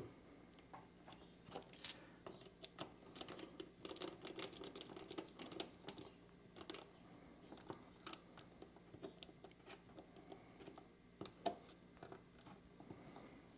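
Faint, irregular small clicks and ticks of a precision screwdriver turning the screw terminals on a motor driver board, with wire leads being handled.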